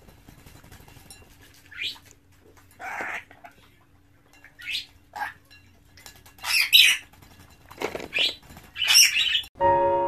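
A lorikeet bathing in a shallow dish of water: short bursts of splashing and wing-flapping, repeated every second or so, with harsh squawks among them.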